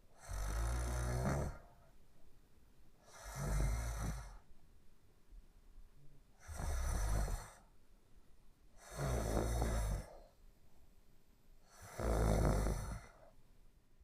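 Snoring in a steady rhythm: five loud snores, one about every three seconds, each lasting about a second, with quiet breathing gaps between.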